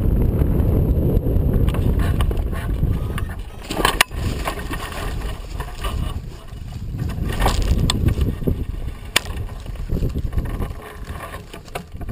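Wind rushing over a hang glider's wing-mounted camera as it glides in low, dying away after about three seconds as the glider slows and lands. Then quieter rustling of the dry stubble with a few sharp knocks from the glider's frame, the first about four seconds in.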